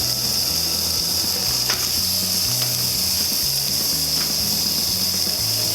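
Background music with a stepping bass line over a steady high-pitched hiss, with a few faint clicks.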